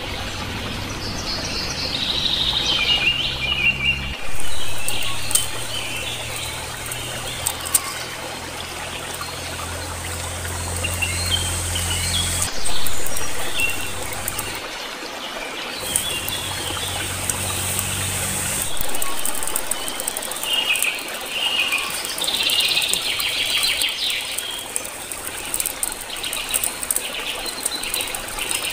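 Birds chirping again and again over a steady high hiss of forest ambience, with the light crackle of a wood cooking fire. Two brief louder swooshes stand out, about four and twelve seconds in.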